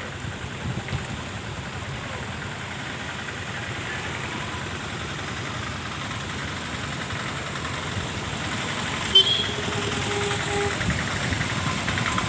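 Steady low rumble of a vehicle engine running. About nine seconds in there is a click, then a brief steady tone lasting a second or so.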